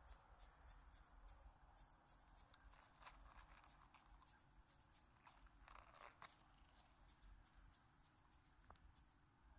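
Near silence with faint, scattered dry clicks and rustles from a peacock butterfly flapping its wings, a little stronger around the middle.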